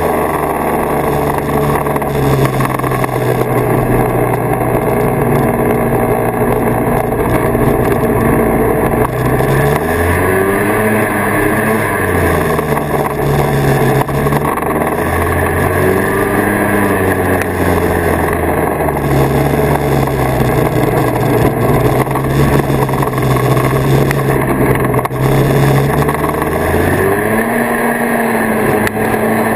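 1979 Kawasaki Invader 440 snowmobile's two-stroke engine running under way. It holds a steady note, and its pitch rises and falls with the throttle a few times: around ten seconds in, around sixteen, and near the end.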